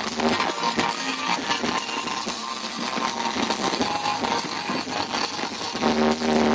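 Loud music with guitar, over a dense crackling noise. Pitched notes stand out again near the end.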